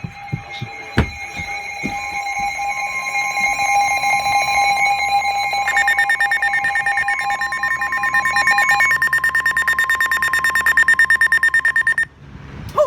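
Emergency Alert System alert tones: steady electronic beeping tones, with a fast pulsing alarm joining in about six seconds in, all cutting off suddenly about twelve seconds in.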